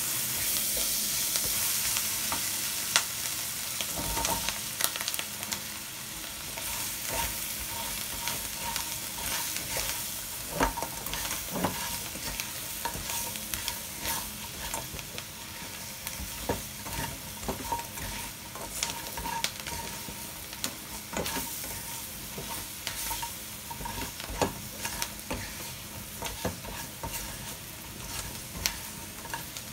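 Garlic, jalapeño and pieces of fried pork chop sizzling in oil in a nonstick wok as they are stir-fried, with frequent clicks and scrapes of a silicone spatula against the pan over a steady hiss.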